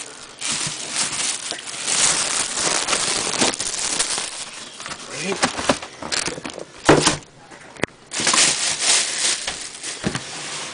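Thin plastic shopping bag rustling and crinkling as a cardboard shoebox is pulled out of it, with a couple of short sharp knocks from the box about seven seconds in.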